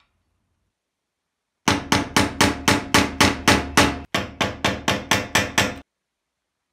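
Hammer striking a steel pin punch in a steady run of sharp metallic blows, about four a second, driving out the ground-down rivets of a butcher axe. The blows break off briefly halfway through, then go on.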